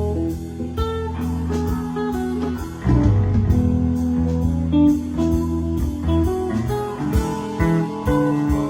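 A live rock band plays an instrumental passage: guitar lines over a bass line, with drums keeping a steady beat.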